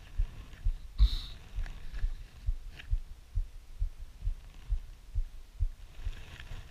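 Handling noise on a handheld phone's microphone: dull low thumps about twice a second, with a brief rustle about a second in.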